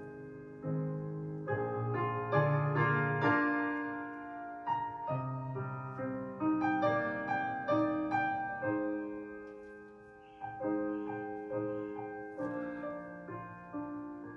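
Solo piano music, with notes and chords struck one after another and each left to ring and fade.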